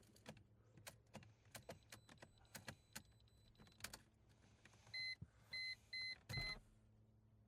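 Four short, high warning beeps from the 2002 Mercedes C240, evenly spaced about half a second apart, near the end. Faint clicks and light rattles come and go throughout.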